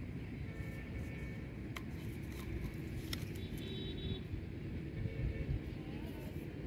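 Steady low outdoor rumble, with a few faint high chirps and a couple of light clicks as a plastic soda bottle and bait are handled about two and three seconds in.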